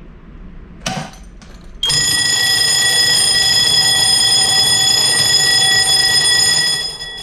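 A short click, then about two seconds in a fire alarm bell starts ringing loudly and steadily for about five seconds before dying away. It is the discharge alarm of a clean-agent releasing panel, set off when the discharge pressure switch signals that the agent has been released by the manual pull lever.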